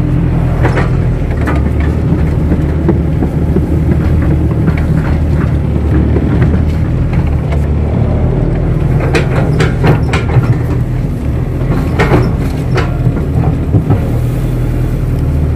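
KATO crawler excavator's diesel engine running steadily under digging work, with a few sharp knocks and clanks in the second half.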